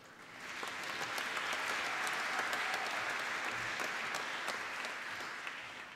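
Audience applause, building over the first second and tapering off near the end.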